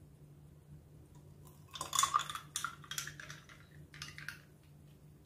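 Cold water poured from a plastic bottle into a glass of ice cubes and mango paste, splashing with light clinks against the glass. It starts about two seconds in and lasts a couple of seconds.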